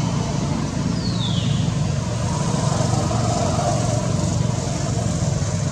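Steady low engine rumble, with one short high-pitched squeak falling in pitch about a second in.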